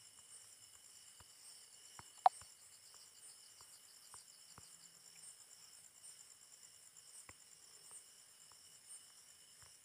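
Faint, steady chirring of insects at several high pitches at once, one of them pulsing rapidly. A single sharp click comes a little over two seconds in, with a few fainter ticks scattered through.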